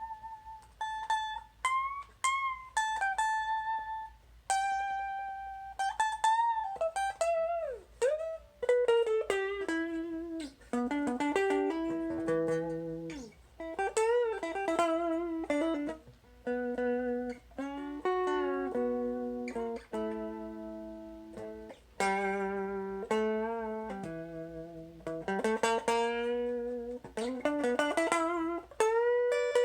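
Electric guitar played through a Gibson BR-9 amplifier: single notes and chords whose pitch glides and wavers, over a faint steady low hum.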